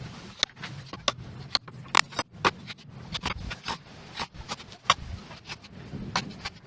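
Irregular sharp knocks, about one or two a second, from hand tools striking bamboo while building a chair frame.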